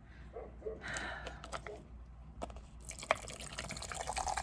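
A drink being poured into a cup, with a few light clicks; the pour becomes steady about three seconds in.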